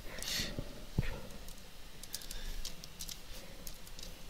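Computer keyboard keys being typed in short, scattered runs of clicks, with a dull thump about a second in.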